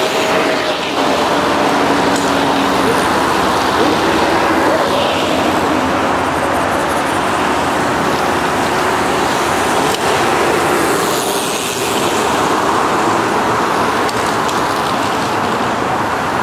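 Steady rushing road noise of a stream of bicycles coasting past on a wet road: tyres hissing on wet tarmac, with no distinct single event.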